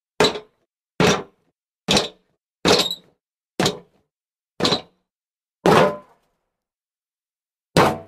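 Jumps landing on hollow wood: eight separate hollow thuds, each dying away quickly, about a second apart, with a longer pause before the last one.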